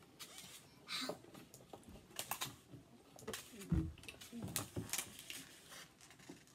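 Scattered light clicks and taps of dishes, cutlery and a juice carton being handled at a meal table, with a brief low voice sound a little past the middle.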